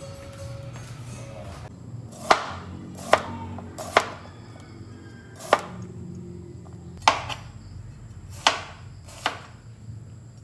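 Kitchen knife slicing a cucumber on a plastic cutting board: seven sharp knocks of the blade striking the board, unevenly spaced about a second apart, starting about two seconds in.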